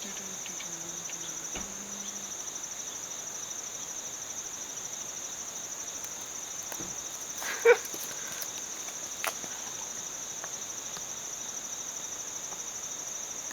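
Steady high-pitched insect chorus with a fast pulsing trill. A short, sharp sound stands out a little past halfway through, and a fainter click follows about a second and a half later.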